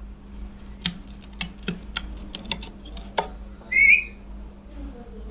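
A rose-ringed parakeet gives one short whistling call about four seconds in, after a run of sharp clicks and taps.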